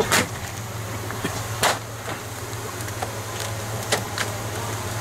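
Large bonfire of joss paper around a wooden royal boat burning, with a steady rumble and low hum broken by a few sharp pops and cracks at irregular intervals.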